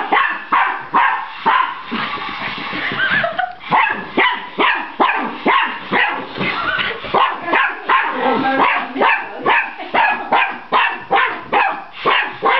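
Miniature Pinscher barking over and over at a remote-control toy, about two sharp barks a second, with a brief let-up about two seconds in.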